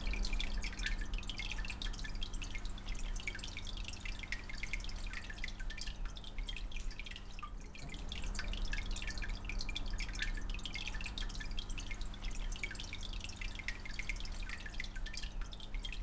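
Aquarium water dripping and trickling in an irregular patter, over a steady low hum.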